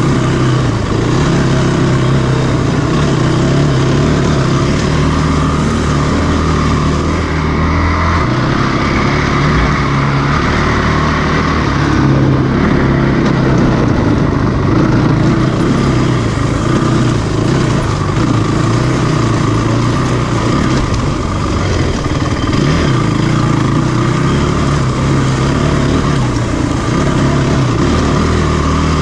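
Honda TRX450ER quad's single-cylinder four-stroke engine running hard under throttle, its pitch shifting as the rider works the throttle.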